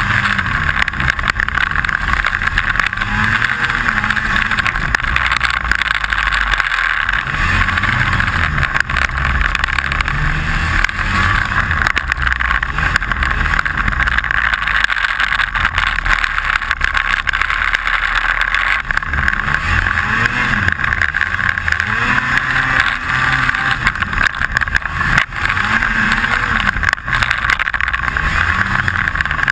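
Snowmobile engine running under way, its pitch rising and falling over and over as the throttle is worked, with a constant rattle over it and a few sharp knocks.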